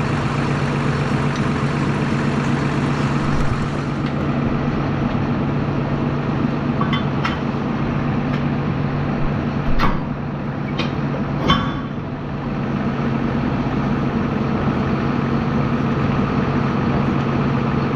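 Tractor engine running steadily, with several sharp metallic clinks about halfway through.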